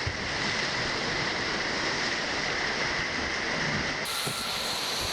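Steady rushing of water and rumble while riding down a water slide, with no clear single event; the noise runs on unchanged through an edit about four seconds in.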